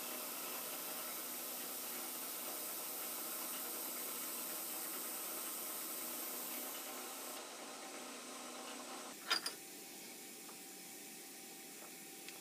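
Vertical milling machine running with an end mill cutting a pocket in a metal block: a faint, steady machine noise with a few steady tones. The noise drops to a quieter hum about seven seconds in, and two sharp clicks follow soon after.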